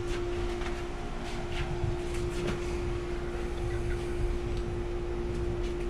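A steady mechanical hum holding one pitch, over a low rumble, with a few faint clicks.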